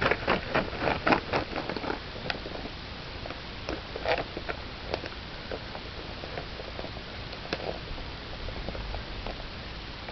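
Pet rabbit making small clicks and taps, a quick run of them in the first two seconds, then scattered single clicks.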